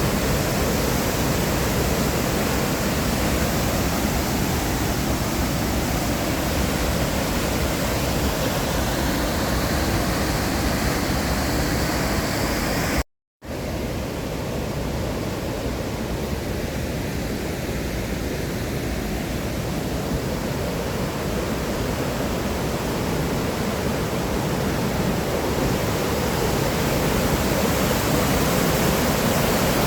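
Steady rush of water pouring over a waterfall. It cuts out briefly about thirteen seconds in, then comes back slightly quieter and slowly builds up again.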